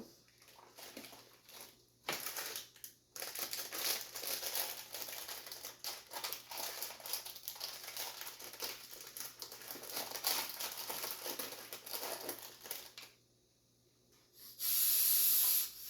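Plastic packaging crinkling and rustling as it is handled and pulled off a POWERbreathe breathing trainer. Near the end, after a short pause, comes a steady hiss of air of about a second: a breath drawn hard through the trainer's resistance valve.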